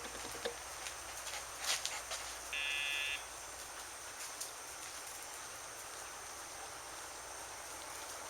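Dogtra e-collar pager buzzing once, briefly, through a sound box fitted to the collar, about two and a half seconds in: the pager cue given to the puppy during leash training. A few faint clicks come just before it.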